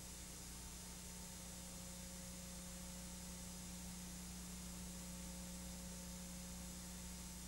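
Steady electrical hum with a few constant tones over even hiss, and no other sound: the soundtrack's background noise.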